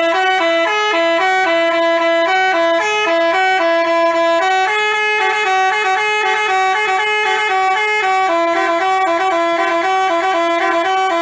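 Basuri telolet bus horn playing a tune: a melody of sustained, stepped horn notes sounding in two voices at once, loud and unbroken.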